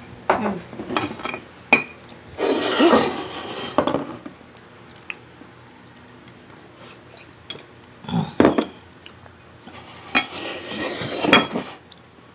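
Cutlery clinking and scraping against plates and bowls. There are scattered sharp clicks and two longer bouts of scraping, one about two seconds in and one near the end.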